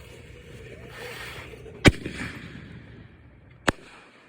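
Consumer fireworks going off: a hiss builds for about a second, then a sharp loud bang, and a second, quieter bang nearly two seconds later.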